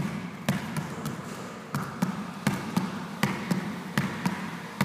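A basketball being dribbled hard on a gym floor in an uneven rhythm of sharp bounces, often in quick pairs, about a dozen in all. The pattern comes from a repeated crossover and between-the-legs dribble sequence.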